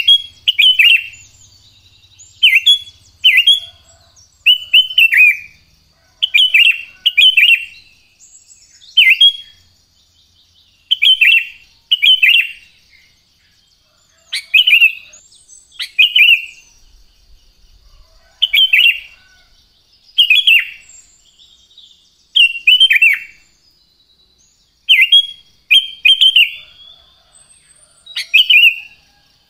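Sooty-headed bulbul calling: short, loud, clear phrases, often in quick pairs, each dropping in pitch, repeated every second or two. A faint steady high-pitched tone runs underneath.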